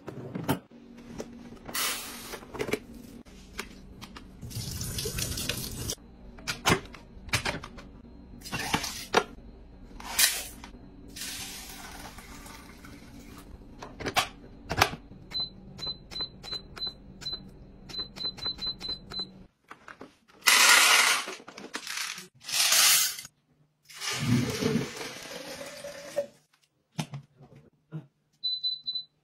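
Handling sounds of household appliances: sharp clicks and knocks of lids and drawers, stretches of running or pouring water, and a string of short high electronic beeps from a control panel, with one more beep near the end.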